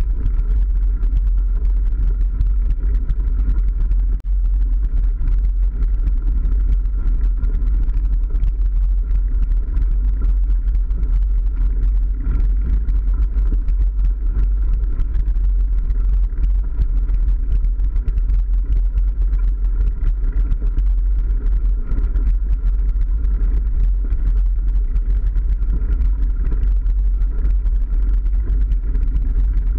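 Steady low rumble of wind buffeting and ride vibration on an action camera's microphone as a mountain bike rolls along a dirt and gravel path.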